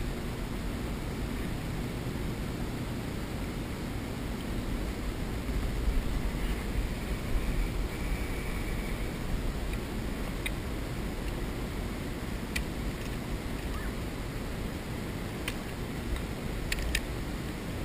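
Steady wind and water noise, swelling a little about a third of the way in, with a few faint clicks later on.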